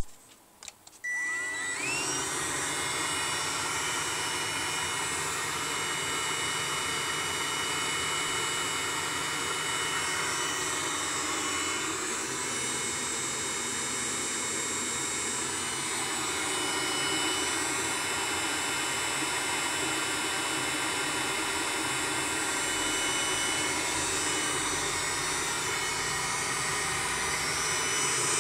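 Webasto Thermo Top C coolant heater starting from cold: clicks as the timer switches it on, then about a second in its motors spin up with a rising whine and settle into a steady whir with a high, even tone.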